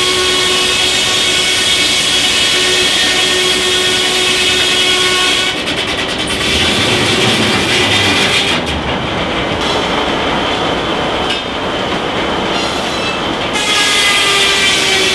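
Steam-powered sawmill running: the large circular saw blade spins with a steady, many-toned whine. In the middle the whine gives way to a rumble as the log carriage rolls past along its track, and the whine comes back near the end.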